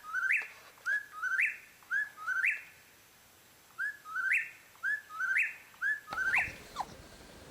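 A bird calling over and over: short chirps, each sweeping up in pitch, about two a second, with a short pause partway through.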